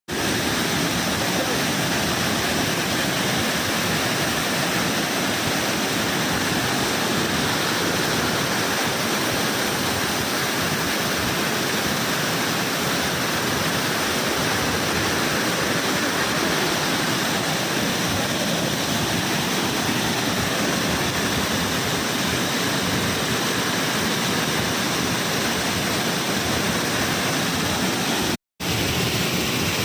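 Waterfall rushing in a steady, loud, unbroken roar of falling water. It cuts out for an instant about a second before the end.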